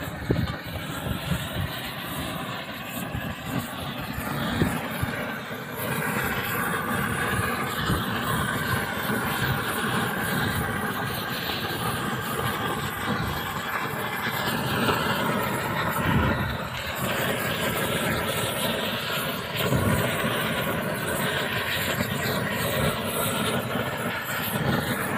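Propane roofing torch burning steadily, its flame heating the seam of a torch-on bitumen waterproofing membrane.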